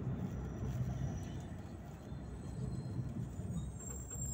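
Steady low engine rumble and cabin noise heard from inside a Volgabus-5270 city bus.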